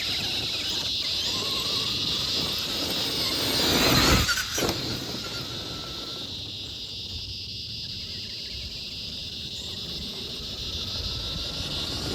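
Traxxas Summit RC truck's brushed electric motor and drivetrain whining under throttle, loudest about four seconds in and fading after, over a steady high chirring of insects.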